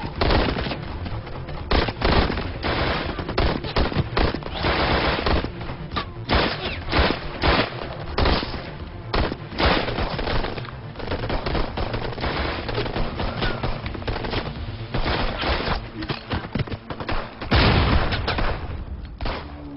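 Heavy gunfire in a film soundtrack: rapid, overlapping bursts and single shots throughout. Near the end a loud explosion goes off and lasts about a second.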